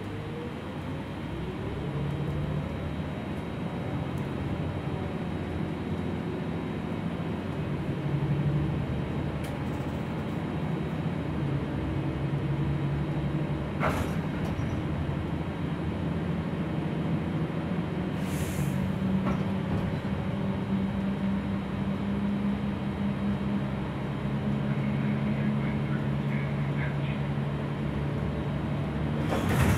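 Gillig low-floor city bus heard from inside the cabin while driving: a steady drivetrain drone with a whine that rises in pitch over the first few seconds as the bus speeds up. A sharp click comes about halfway through, a short hiss a few seconds later, and a loud knock near the end.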